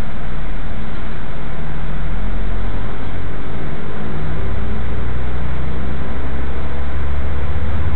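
A passenger train running, heard from inside the carriage: a loud, steady low rumble. About halfway through, the low hum changes pitch, and faint gliding tones sit above it.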